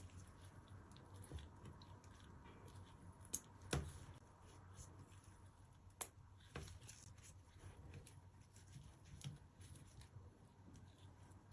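Faint handling sounds of a squishy stress-relief toy being worked by hand: scattered soft clicks and crackles, with a few sharper clicks about four and six seconds in.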